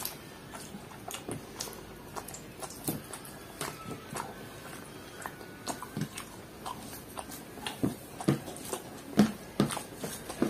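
Close-up eating sounds: chewing and wet mouth smacks, with fingers mixing rice and chicken gravy on a paper plate. Short irregular clicks and smacks, a few louder ones near the end.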